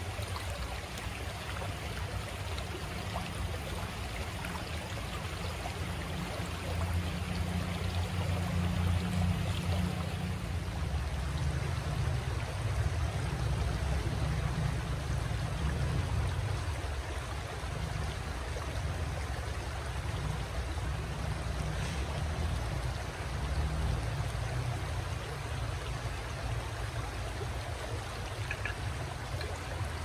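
A shallow stream running steadily over rocks and pebbles.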